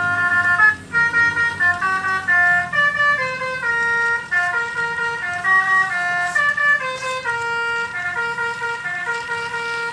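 Telolet basuri musical horn playing a tune: several horn tones sounding together and stepping from note to note every fraction of a second.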